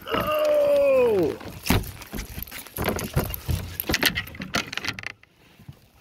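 A brief whine that slides down in pitch over about a second. It is followed by scattered clicks, knocks and rattles of a landing net and gear handled against a fishing kayak while netting a hooked fish. These die away near the end.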